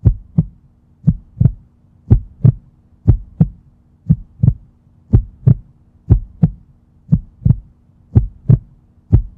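Heartbeat sound effect: a steady lub-dub double thump about once a second, over a faint steady hum.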